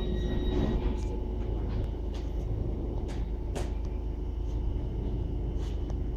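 Southeastern electric multiple-unit train at the platform, a steady low rumble with a high steady tone that stops about a second in and a few sharp clicks.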